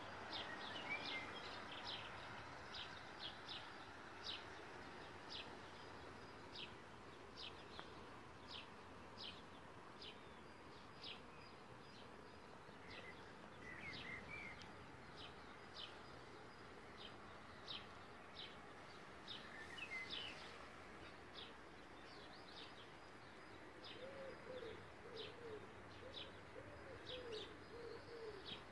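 Faint outdoor birdsong: a small bird giving short, high chirps about once or twice a second, with a few brief higher warbles. Near the end a pigeon starts cooing in low, repeated phrases.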